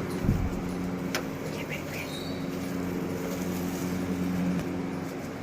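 Car engine idling steadily, with a knock right at the start and a click about a second in.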